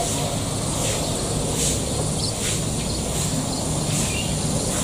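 Rural trackside ambience: a steady low hum, with a few short bird chirps scattered through it.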